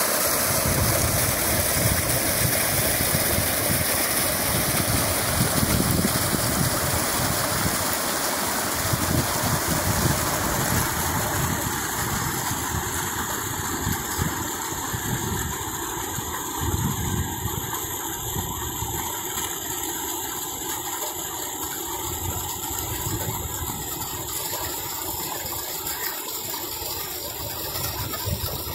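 Water gushing from an open pipe outlet below a gate valve, a steady rushing with a churning low rumble that grows gradually quieter from about ten seconds in.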